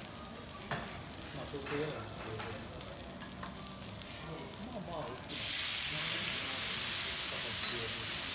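Hot teppanyaki griddle sizzling quietly, with a few light clicks, then about five seconds in a loud, steady sizzle starts suddenly as a thin raw slice of wagyu beef is laid flat on the hot steel plate.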